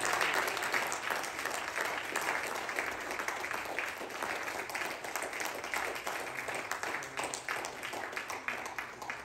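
Congregation applauding, thinning out and fading near the end.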